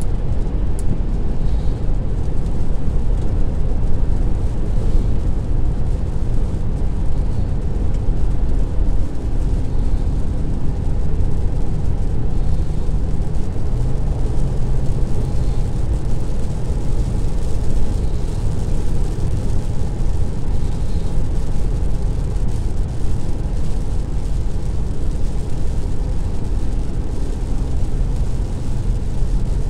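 Steady road noise heard inside a moving car's cabin: engine and tyres running on a wet road.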